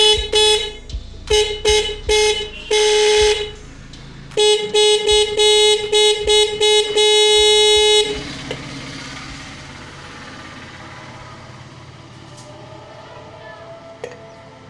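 Motorcycle electric horn sounded repeatedly on one steady tone: rapid short toots and a few longer blasts in two bursts, ending with a long blast about eight seconds in. A steady hiss follows.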